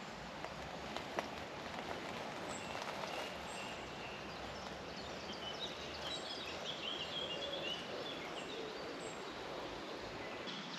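Woodland ambience: faint songbird chirps and trills over a steady background hiss, with a few soft clicks and rustles.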